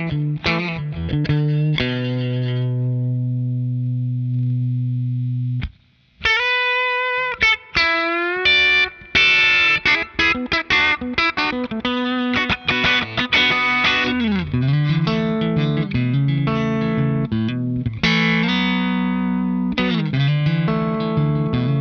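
Stratocaster-style electric guitar played through a Strymon Compadre compressor in its Squeeze mode, the vintage stompbox setting at a higher compression ratio, which gives the notes an even, squeezed sustain. A chord rings out steadily and is cut off about six seconds in. Single-note lines with string bends and quicker riffs follow, with a slide down the neck about two-thirds of the way through.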